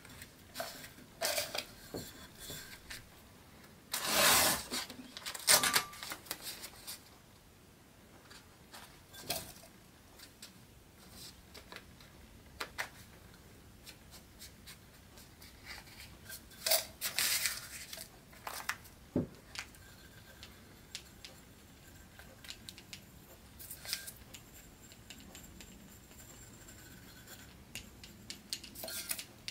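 Paper masking rustling and crinkling in short, irregular spells as it is wrapped and pressed by hand around a stencilled mug, loudest about four to six seconds in.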